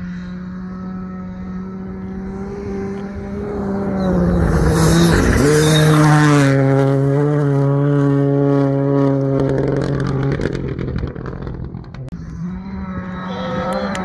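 Rally car engine running hard as the car comes closer, loudest around five seconds in, where its note drops to a lower pitch and holds there. Another engine note rises near the end.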